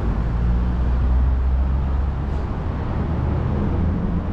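A motor vehicle running: a steady low rumble with a low engine hum, without change or sudden events.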